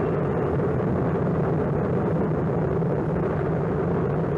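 Kilauea's lava fountain erupting: a steady, deep rushing roar with no breaks.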